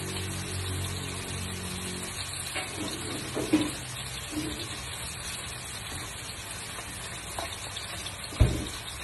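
Butter and food sizzling steadily in a frying pan. A low hum fades out about two seconds in, there are a couple of light knocks midway, and a sharp thump near the end.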